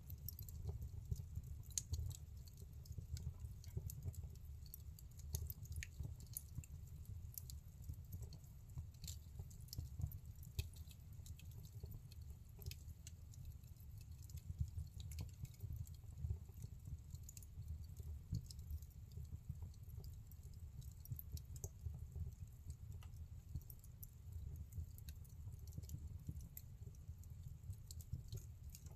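Wood fire burning in a fireplace: irregular crackles and small pops of the burning logs over a low, steady rumble.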